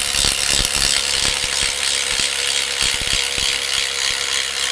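Second-generation Milwaukee M12 Fuel impact driver (2553) hammering under full load as it bores a 1-1/4-inch self-feed bit into wood, with a steady motor whine under the impacts.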